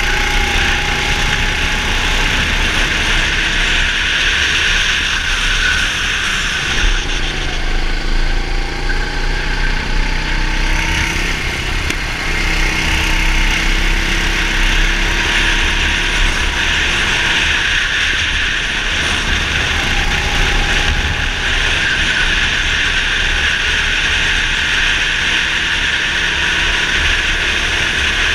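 Racing go-kart engine running hard at speed, its pitch rising and falling as the kart brakes and accelerates through the corners, over heavy wind noise on the onboard microphone.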